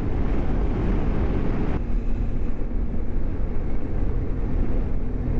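Motorcycle on the move at road speed: a steady rush of wind and engine noise. About two seconds in, the higher hiss drops and a faint, steady low hum comes through.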